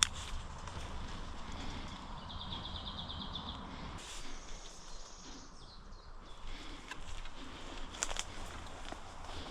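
Woodland ambience with birds singing, including a rapid trill of even, high notes about two seconds in, over footsteps and movement noise, with a couple of sharp clicks about eight seconds in.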